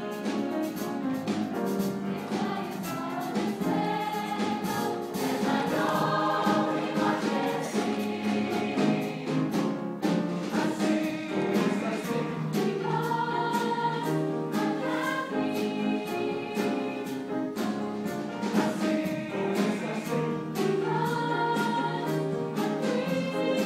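Mixed choir singing a gospel number, accompanied by piano and drum kit.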